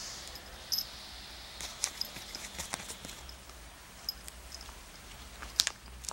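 A kitten chewing and pawing at foam toy darts on a blanket: scattered small clicks and soft rustles, the sharpest click about five and a half seconds in.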